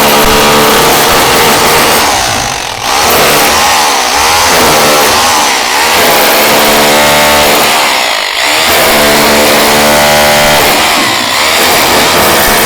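Stanley SHR263K electric rotary hammer in chisel mode, hammering continuously into hard tile mortar on a wall. The motor pitch sags and recovers under load, with a brief easing off about 3 s and 8 s in.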